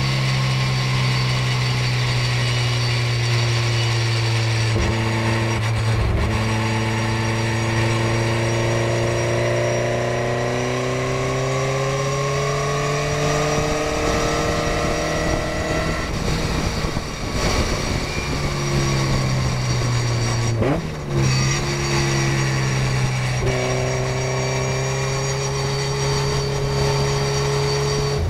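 Morgan race car's engine heard from onboard, running steadily at part throttle over wind and road noise. About halfway the engine note falls away for a few seconds and then picks up again, with a short dip near three-quarters in.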